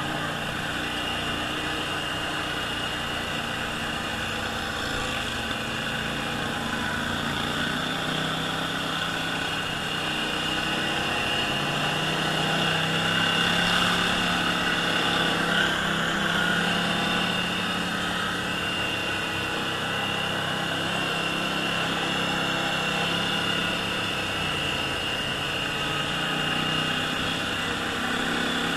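ATV engine running steadily at low trail speed, swelling slightly in the middle as the throttle is opened a little.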